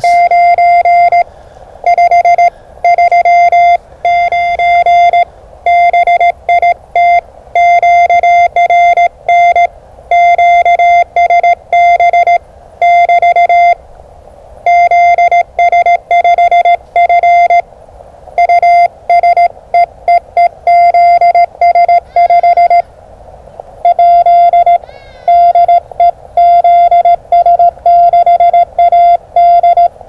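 Morse code from a ham radio transceiver: a single steady beep keyed on and off in dots and dashes at a brisk pace, with short pauses between words.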